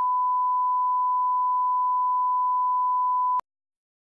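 Steady 1 kHz line-up test tone, the reference tone that runs under colour bars at the head of a video tape. It cuts off abruptly about three and a half seconds in.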